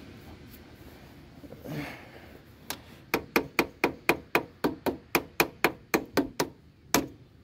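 A hand tool tapping a battery terminal clamp down onto the battery post: a run of sharp metal taps, about four a second, starting a little under three seconds in and stopping shortly before the end.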